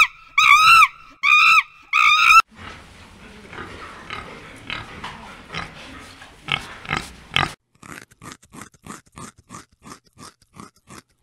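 A few loud, evenly repeated pitched calls, then piglets grunting and squealing in a pen, then a run of short regular clicks, about three a second.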